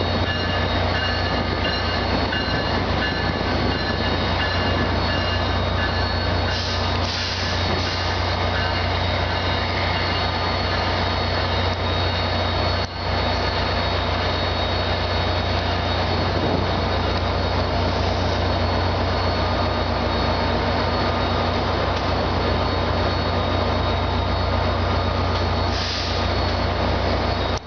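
Steady running noise of idling diesel commuter locomotives in a train shed: a constant low hum with a wash of engine noise and a few steady whining tones over it.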